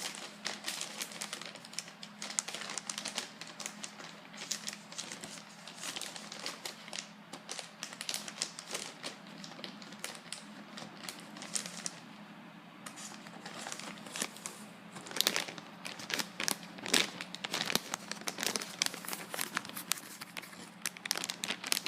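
Plastic wrapping film crinkling and crackling on and off as a package is unwrapped by hand. It eases off briefly past the middle, then grows heavier and louder in the last several seconds.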